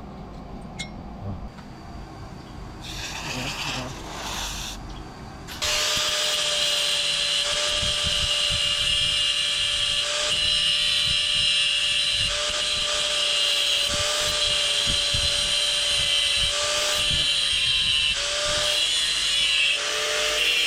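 Electric power tool, of the kind used to shape a knife blank, switching on about five seconds in and running steadily with a high whine, easing off briefly a few times.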